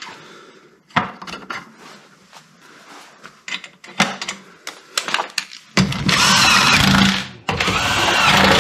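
Light metallic clicks and taps as wheel nuts are fitted by hand onto the wheel studs. About six seconds in, a power drill with a socket runs the wheel nuts on in two bursts, the second starting after a brief pause.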